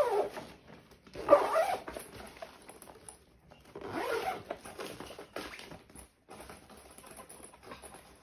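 Zipper on a suitcase's fabric interior divider being pulled, in two runs about a second in and about four seconds in, with fainter scratching of the lining fabric between and after.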